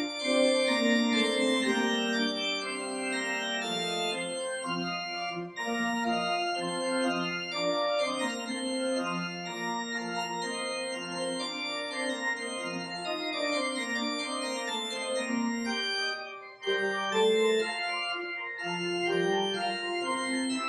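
Church organ playing slow, held chords, with a short break in the phrase about sixteen seconds in; the last chord is released at the very end.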